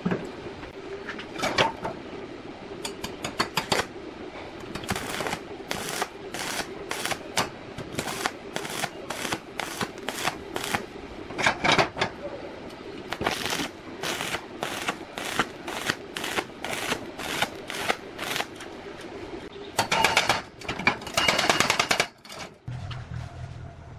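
Steel being struck again and again with a hammer, sharp metallic hits about one or two a second, over a steady hum. A denser, faster cluster of hits comes near the end, and the hum stops shortly after.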